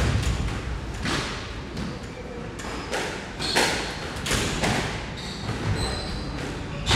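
Squash rally: the ball repeatedly smacking off rackets and the court walls at irregular intervals of about half a second to a second, with a few short squeaks of court shoes on the wooden floor.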